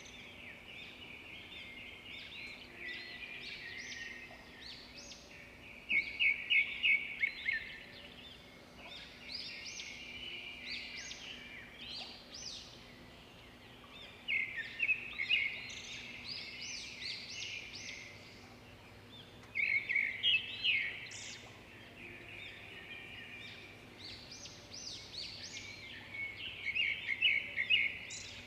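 Birds singing: loud runs of rapid chirping notes every six to eight seconds, with softer song in between.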